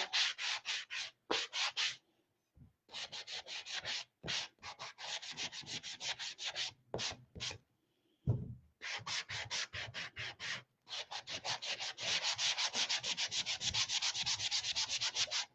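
Sanding block rubbed back and forth along the edges of a chalk-painted house cutout in quick scraping strokes, distressing the red paint so a little white shows through. The strokes come in short runs with brief pauses, then settle into a steady run of about five strokes a second near the end.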